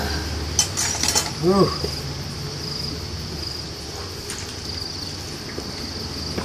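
Insects chirping in a steady, high, pulsing background. A few brief broom swishes on stone come near the start, and a short voiced sound is heard about a second and a half in.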